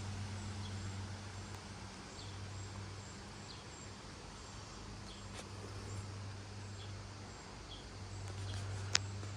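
Outdoor ambience: a steady hiss over a low hum, with faint short bird chirps scattered through it and one sharp click near the end.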